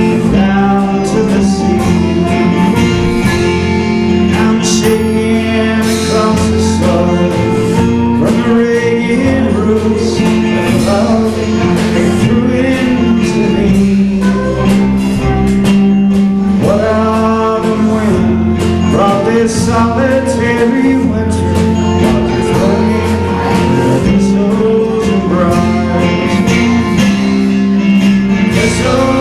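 Live country-bluegrass band playing a tune on acoustic guitar, banjo, upright bass and drum kit.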